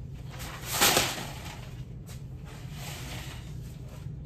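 A brief rustle about a second in as large decal sheets are set down on a workbench, then a faint steady low hum.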